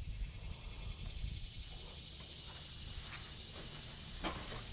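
Steady high drone of insects with low wind rumble on the phone microphone, and one sharp tap about four seconds in.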